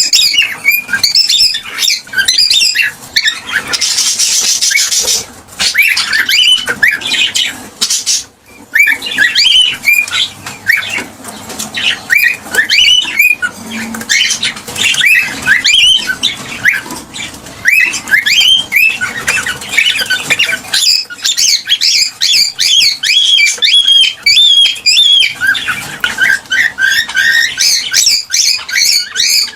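Cockatiel chirping and calling in a rapid, continuous run of short sliding chirps, with a harsher squawk about four seconds in.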